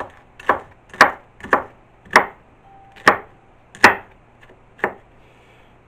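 Chef's knife chopping green pepper on a wooden cutting board: about eight sharp chops, two a second at first and then slower, ending about five seconds in.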